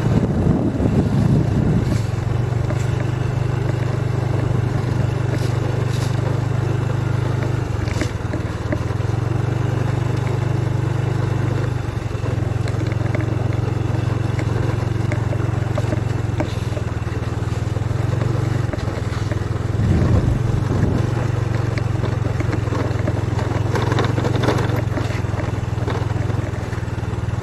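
Small motorcycle engine running steadily while riding, its note dropping briefly about eight seconds in and again near twenty seconds. Wind rumbles on the microphone.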